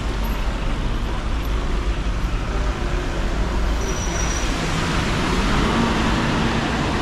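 City traffic on a rain-soaked road: the steady tyre hiss of cars on wet pavement, with a city bus's engine passing, growing a little louder in the second half.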